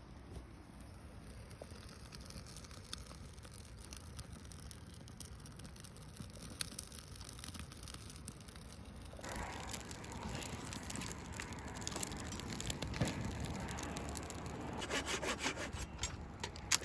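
A small campfire of birch bark and twigs burning, with scattered sharp crackles over a rough rustling noise. The noise grows louder and coarser about halfway through, with a quick run of rasping strokes near the end.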